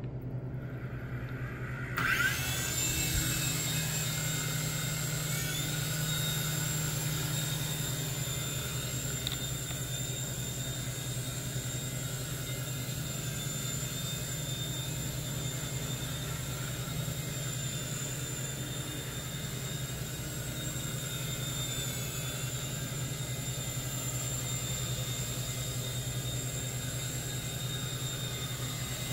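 Syma S39H XL toy RC helicopter's small electric motors spinning up about two seconds in with a rising whine. The motors then run steadily in flight: a high whine over a low buzz of the rotor, with a brief dip in pitch once.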